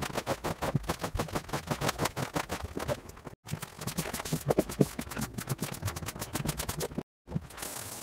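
Rapid, repeated scraping and brushing strokes worked across a rug, sped up so that the strokes follow one another several times a second. The strokes are broken twice by brief dead-silent gaps.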